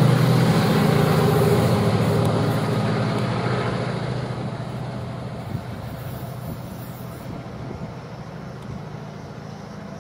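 Class 68 diesel locomotive running as its train moves away along the curve, the engine hum and train noise fading steadily.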